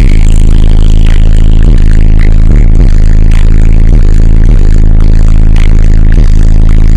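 Bass music played extremely loud through a car audio system of two 18-inch and two 15-inch subwoofers. Deep sustained bass notes with a falling pitch drop about once a second, overloaded and distorted.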